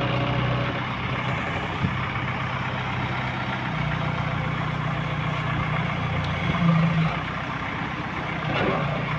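Heavy construction machine's engine running steadily. Its pitch steps up a little about four seconds in, with a brief louder surge near seven seconds.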